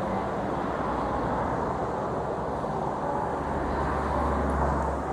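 Road traffic noise: cars going past, with one vehicle's low rumble growing loud near the end. Church bells ring faintly underneath, mostly drowned out by the traffic.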